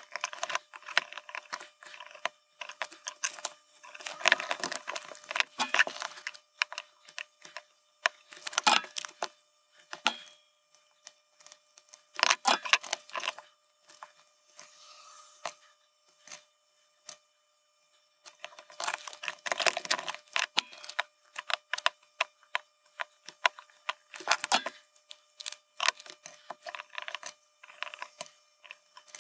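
Small plastic-and-metal clicks and rattles of RGB LEDs and their wire leads being pressed into the holes of a circuit board and the board being handled on the desk. They come in irregular clusters, with a short quiet gap a little past halfway.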